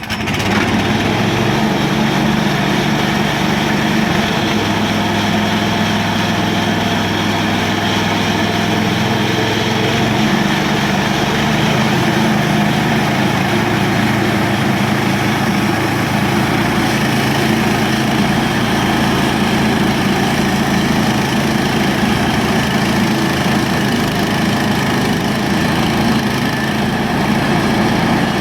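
Gas engine of a Harbor Freight band sawmill running loud and steady while the blade cuts through an elm log. The engine note shifts slightly about four seconds in and again around ten seconds.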